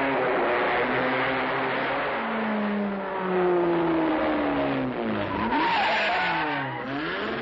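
Vintage racing car engines running hard as the cars go past one after another, the engine pitch sliding down as each goes by. Around the middle there is a screech of tyres.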